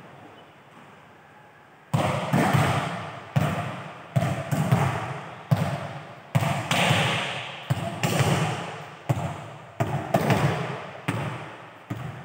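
A volleyball struck or bounced repeatedly, about fifteen sharp smacks at uneven intervals starting about two seconds in, each followed by a long echo in the large, hard-walled hall.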